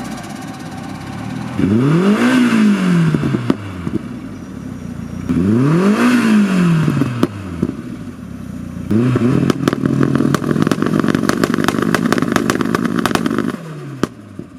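Turbocharged 1.3 litre 8-valve four-cylinder of a 1989 VW Polo 86c revved twice, each rev rising and falling back. It is then held at one steady rpm for about four seconds with a rapid string of exhaust pops and crackles, as on launch control with antilag, and cuts off near the end.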